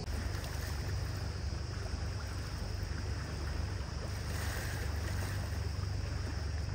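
A tour boat under way: a steady low engine drone under the rush of water and wind.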